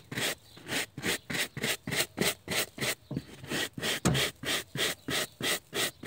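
Stiff hand brush scrubbing a car's fuzzy floor carpet in quick back-and-forth strokes, about four a second, with a brief pause about halfway, loosening the sand and dirt packed into the pile.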